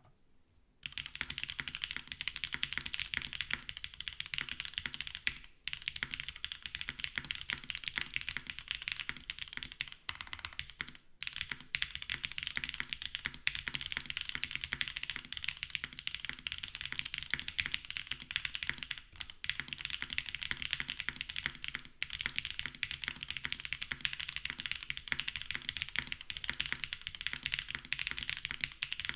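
Continuous typing on a mechanical keyboard: low-travel (3.0 mm) Clackbits switches on a nylon plate in an O-ring-mounted polycarbonate case, making rapid key clicks. The typing starts about a second in and breaks off briefly twice.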